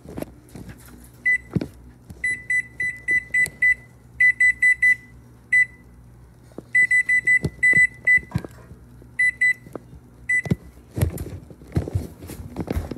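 Whirlpool oven's touchpad control panel beeping with each key press as the arrow keys are pressed: short high beeps, some single and some in quick runs of five to seven. Handling knocks and rustling come near the end.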